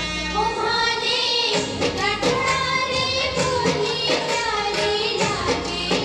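Rajasthani Ghoomar folk song accompanying the dance: a high voice sings a winding, ornamented melody over a steady drum beat.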